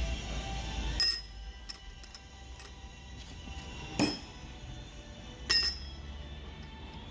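Metal parts clinking: three sharp strikes with a high ringing after each, and small ticks between them. A low steady hum underneath stops at the first strike.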